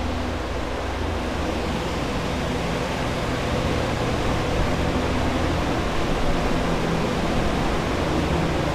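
Water-damage drying equipment running: air movers and dehumidifiers making a steady rush of air over a low hum.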